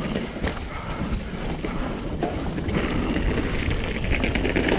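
Mountain bike rattling down a rough trail at speed: a steady rumble of tyres on dirt and rock, with repeated knocks and clatter from the bike over the bumps.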